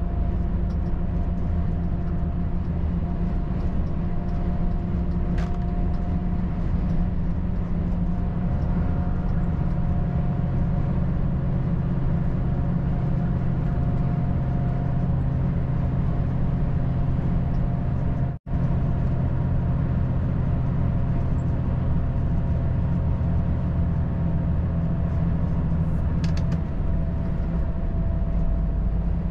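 Volvo FH 540 truck driving at a steady pace: its 13-litre six-cylinder diesel gives a steady low drone mixed with road and tyre noise. About two thirds of the way through, the sound cuts out for an instant.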